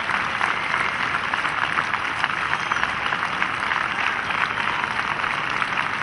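A very large open-air crowd applauding steadily, thousands of hands clapping into one dense crackle.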